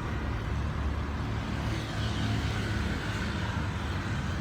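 Steady low rumble of a motor vehicle, engine and road noise.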